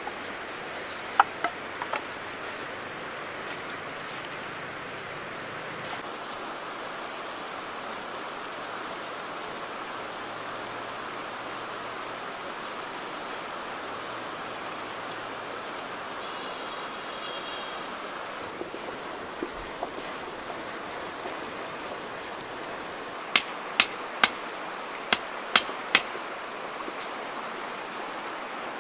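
Steady rush of a flowing river, with a couple of faint clicks near the start. Toward the end a machete chops into a piece of wood: six sharp knocks over about three seconds.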